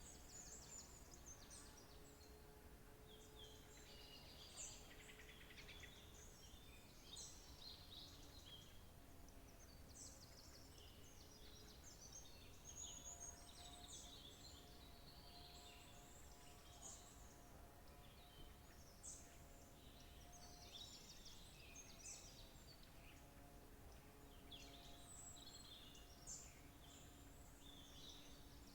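Faint birdsong: several small birds chirping and trilling in overlapping short phrases throughout, over a soft steady background hiss.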